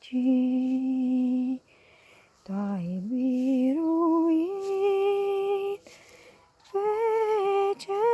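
A woman singing unaccompanied without words, humming long held notes of a slow hymn tune. A low held note is followed by a short pause and a phrase that climbs step by step. After a second pause comes a higher note with a slight waver near the end.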